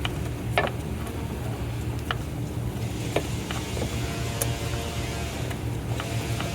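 A steady low mechanical hum with scattered light clicks and handling noises while the spliced headlight wires are wrapped in electrical tape.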